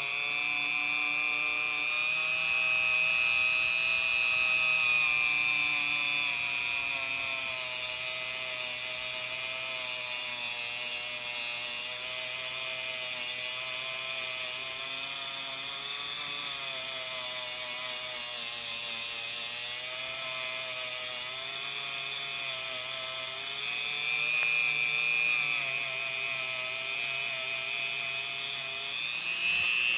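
Dremel rotary tool running at high speed with a brass wire brush wheel, cleaning the edges of a starter part: a steady motor whine whose pitch sags and recovers as the brush is pressed against the metal.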